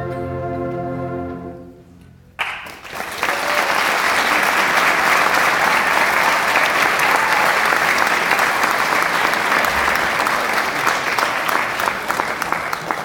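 A school concert band holds its final chord, which stops about two seconds in; a moment later the audience starts applauding and keeps clapping, easing off near the end.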